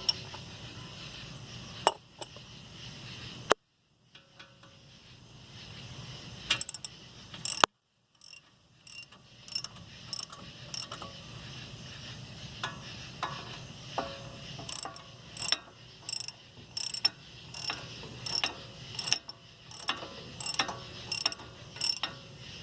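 Ratchet wrench clicking in repeated strokes as bolts are tightened to draw a new front wheel bearing hub into the steering knuckle's bore. The strokes come about one or two a second, with two short breaks near the start.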